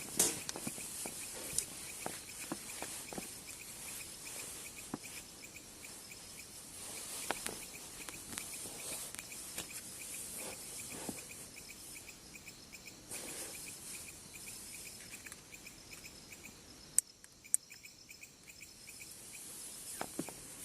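Night insects: a cricket chirping in a quick, even train of pulses over faint outdoor hiss, with scattered soft rustles and clicks. Two sharp clicks come a few seconds before the end.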